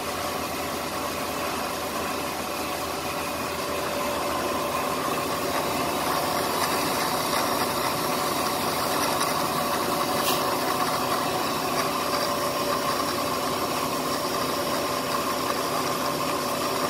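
Bridgeport EZ-Trak milling machine's spindle running with a steady hum and whine, a little louder from about four seconds in, with a single brief click about ten seconds in.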